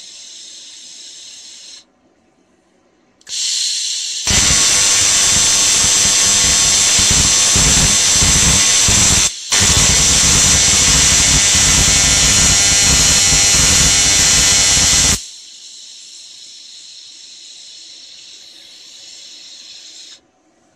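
TIG welding arc on thin aluminium sheet: a loud, even buzz that runs for about eleven seconds and breaks off for an instant once midway. Before and after it there is a quieter steady hiss.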